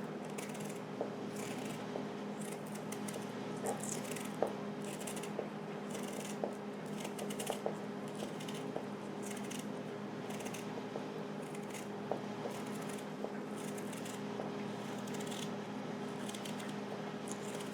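A pear being peeled by hand: repeated short scraping strokes of a blade through the skin, with small clicks, over a steady low hum.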